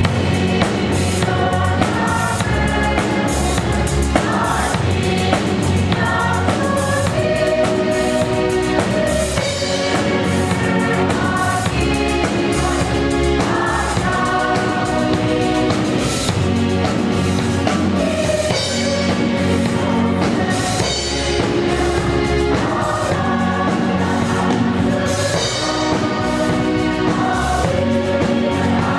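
Choir singing in parts, accompanied by electric bass, keyboard and drum kit.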